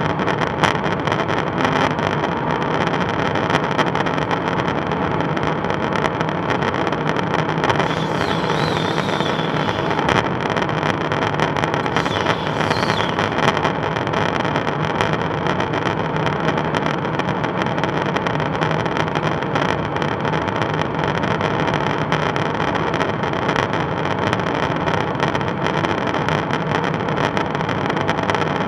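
Steady drone inside a KC-135 Stratotanker's boom operator pod in flight: engine and airflow noise carried through the airframe, with a low hum. A faint wavering high tone comes up briefly about eight seconds in and again around twelve seconds.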